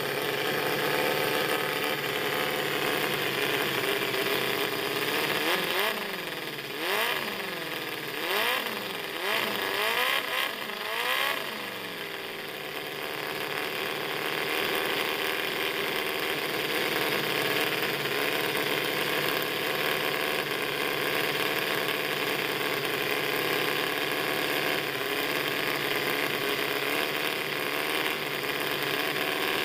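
Miniature inline four-cylinder four-stroke gasoline engine running steadily on pump gas. Partway through it is revved up and back down several times in quick succession, then it settles back to a steady idle.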